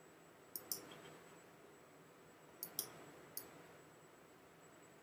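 Computer mouse button clicked three times, faintly, each click a quick press and release; the first comes about half a second in, the other two close together a little under three seconds in.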